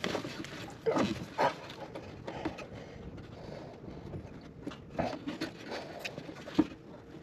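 Hands working a plastic EVAP vent valve loose from its mount under a Chevy Cruze, pushing and pulling on it after the red locking clip has been pushed up: a few scattered knocks and scrapes, the loudest about a second in and again near the end.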